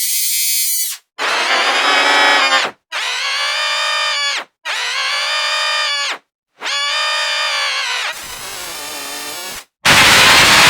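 A cartoon character's scream, layered with pitch-shifted copies of itself so that it sounds as a harsh, dissonant chord. It comes as a string of separate screams, each about a second or a second and a half long, with short breaks between them; one near the end is the loudest.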